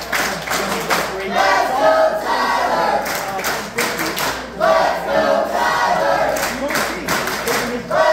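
Wrestling crowd chanting in unison in short repeated phrases, with rhythmic clapping between the chants.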